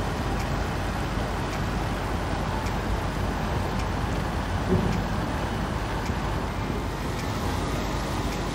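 Mussels cooking in garlic butter in a hot pan: a steady sizzling hiss with scattered small pops, and one brief low knock about five seconds in.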